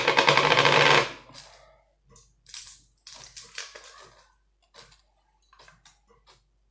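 Foil wrappers of Maggi seasoning cubes crinkling as the cubes are unwrapped over the pot: a loud burst of crinkling for about the first second, then short, quieter crackles on and off.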